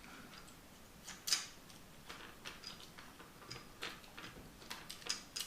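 Faint small clicks and taps of plastic parts and a tool as a joystick module is worked loose from a Nintendo Switch Joy-Con. One click a little over a second in is the clearest, and a scatter of lighter ones follow.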